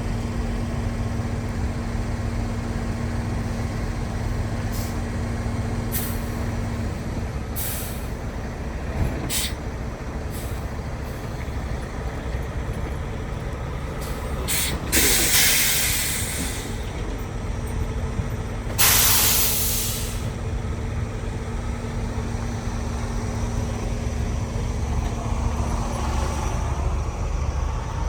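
Logging truck's engine running with a steady low rumble, broken about halfway through by two loud hisses of air from its air brakes a few seconds apart, with a few light clicks before them.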